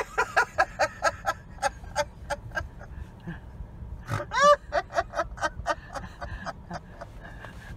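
A woman laughing hard in a fast run of short, breathy, snorting pulses, about five a second. About four seconds in she lets out one louder, higher squeal of laughter, and then the pulses go on.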